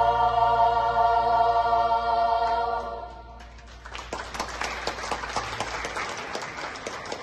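Women's choir holding a final sustained chord that fades out about three seconds in. About a second later, audience applause begins.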